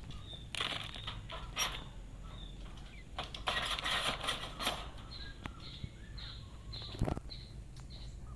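Quail chicks peeping, short high calls repeated again and again, broken by two brief flurries of flapping wings and one sharp knock about seven seconds in. The peeping is the chicks calling for their mother, who has flown off.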